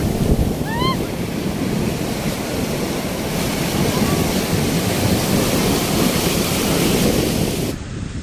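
Sea surf rushing and breaking in the shallows, with wind buffeting the microphone. A brief high cry from a voice about a second in, and the rushing drops quieter near the end.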